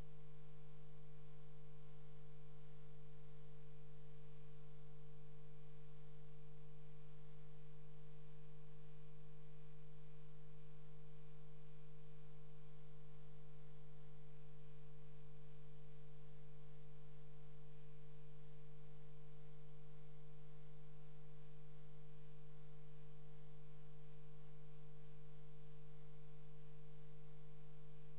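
A steady, unchanging low hum with a fainter higher tone above it, and no other sound.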